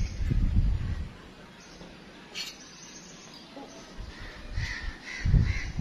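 Wind gusting on the microphone in low rumbles, loudest in the first second and again near the end. A few faint crow caws come in the second half, with a single click about two and a half seconds in.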